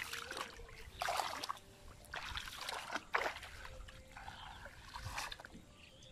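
Shallow water splashing and sloshing as weeds are pulled and feet step in a flooded paddy: about five short splashes, roughly a second apart.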